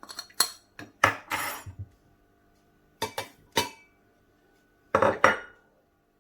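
Spoons and small dishes clinking and knocking against the blender jar as spice powders are tipped in, in four short clusters of knocks with quiet gaps between.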